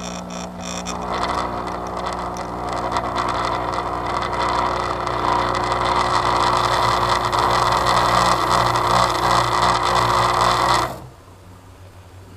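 A small electric motor running with a steady hum and whir, growing a little louder, then switched off abruptly about eleven seconds in.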